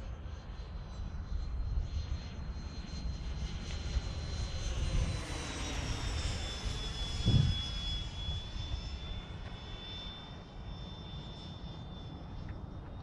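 Whine of the 80mm electric ducted fan of a Freewing A-4 Skyhawk RC jet making a flyby, its pitch dropping as it passes overhead about five seconds in, over a steady low rumble. A brief low thump about seven seconds in is the loudest moment.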